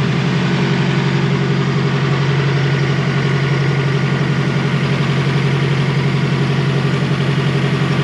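Turbocharged Nissan SR20DET four-cylinder engine idling steadily, running on E85 with freshly gapped spark plugs.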